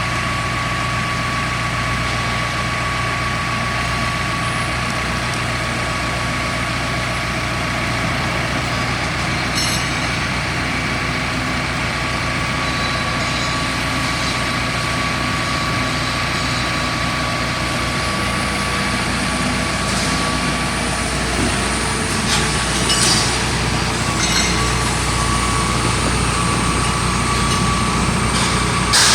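Hydraulic drill rig's engine and hydraulics running steadily, with a deep hum and a constant high whine. A few sharp knocks come near the end.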